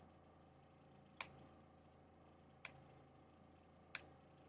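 Three sharp single clicks, about a second and a half apart, over faint room tone: a computer being clicked through a photo slideshow.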